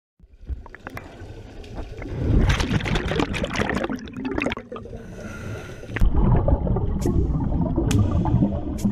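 Underwater bubbling and gurgling of a scuba diver's exhaled air bubbles rising, crackling loudest from about two seconds in. From about six seconds a low rumble with a sharp click about once a second joins in.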